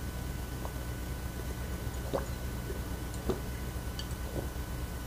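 A person drinking water in gulps from a glass mug: about four separate swallows, a second or so apart.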